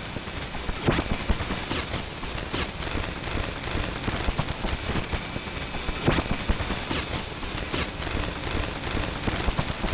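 Harsh noise music from a cassette noise tape: a dense wall of crackling hiss across all pitches, broken by frequent sharp cracks, with stronger hits about a second in and again around six seconds.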